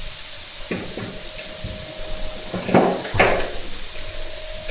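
A few dull knocks, two louder ones close together a little past the middle, over a faint steady hum.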